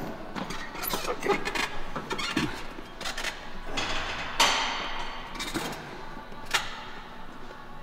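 Barbell preacher curls: a few scattered knocks and clanks of the barbell and bench, with a short sharp burst of noise about four and a half seconds in, over faint gym background.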